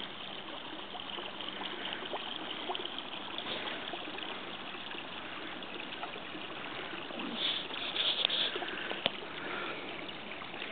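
Steady hiss of running water, a small stream or trickle, with a few faint clicks and a brief swell about eight seconds in.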